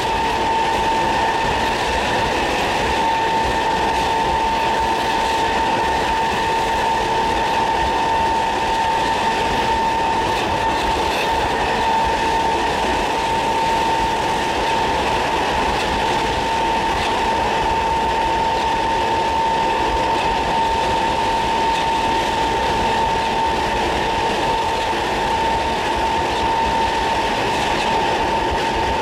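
GEC G315BZ DC traction motors of a Class 317 electric multiple unit whining at a steady pitch at speed, over steady wheel and rail noise, heard from inside the coach.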